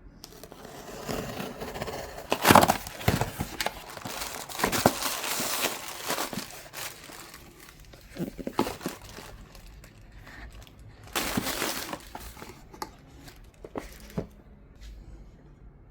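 Packaging of a phone box being torn open and crinkled by hand: a long stretch of rustling and crackling with a few sharp rips, another short burst of rustling about eleven seconds in, then scattered light clicks and taps.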